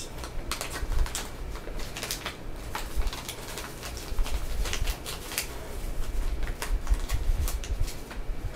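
A small paper-and-plastic parts packet being handled and opened by hand: irregular crinkling and clicking with dull knocks.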